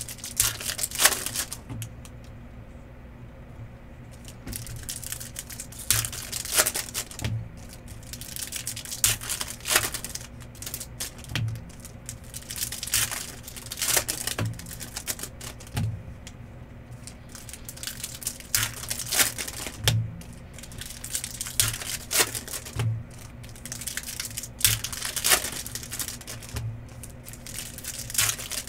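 Trading card boxes and foil packs being opened by hand: wrappers crinkling and tearing in repeated short bursts, with snaps and clicks of cardboard and cards being handled.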